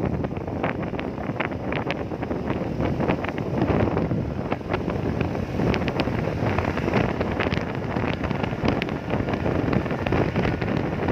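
Steady rushing, rumbling noise with wind buffeting the microphone and frequent short crackles.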